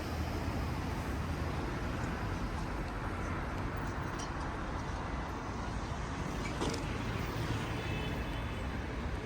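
Street ambience: a steady rush of road traffic from passing cars, with a brief click about six and a half seconds in.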